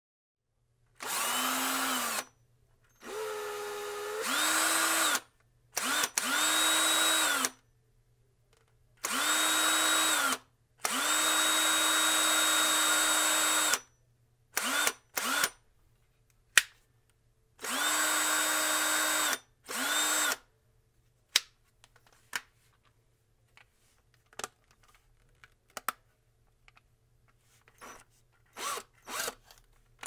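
Cordless drill motor running in a series of trigger pulls, each spinning up quickly to a steady whine, holding for one to three seconds, then winding down. One run starts at a lower speed and speeds up partway through. Two brief blips follow, then scattered short clicks and taps in the last third.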